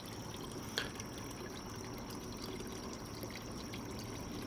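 Small pond waterfall trickling steadily into the water, with one faint click about a second in.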